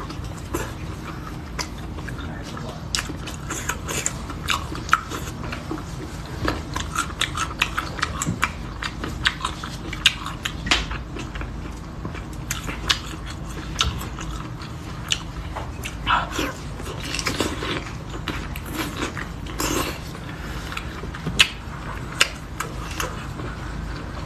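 Close-miked wet chewing and biting of spicy intestines: irregular sticky clicks and squelches from the mouth, over a low steady hum.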